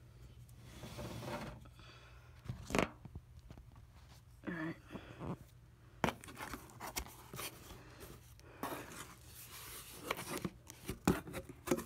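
A cardboard shipping box being opened by hand: packing tape tearing and flaps rustling and scraping, with scattered sharp knocks and clicks as the box is handled.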